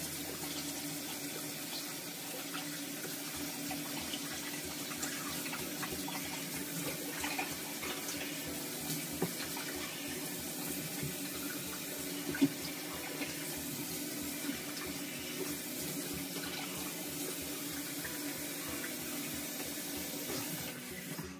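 Bathroom sink tap running steadily into the basin as water is splashed onto the face, with one sharp louder knock about halfway through.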